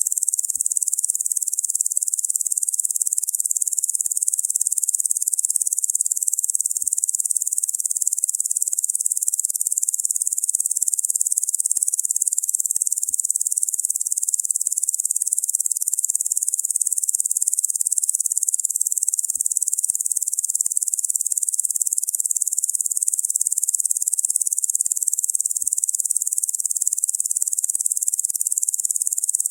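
Locust insect sound: a continuous, dense, high-pitched buzzing drone that stays steady throughout.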